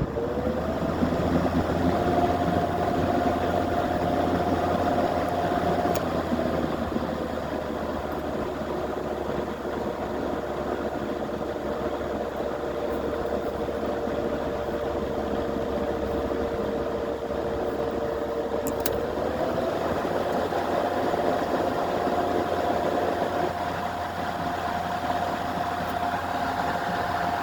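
Sears box fan running: a steady whir and rush of moving air over a low motor hum. The tone drops a step about six seconds in and glides back up around twenty seconds in, then cuts off suddenly at the end.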